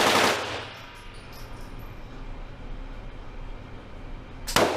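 Two single rifle shots from an AK-47, about four and a half seconds apart, each ringing off the walls of an indoor range for about half a second. Light metallic clinks follow each shot.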